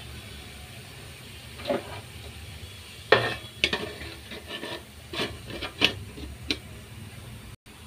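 Metal kitchenware clinking and knocking: about ten short, sharp clatters over a few seconds, over a steady low hum.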